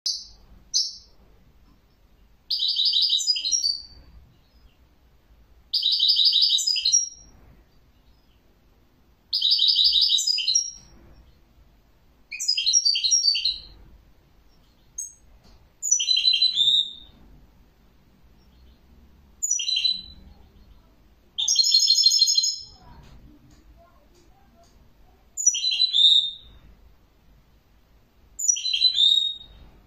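European goldfinch singing: short, high twittering phrases of one to two seconds, about ten of them, each followed by a pause of a second or two.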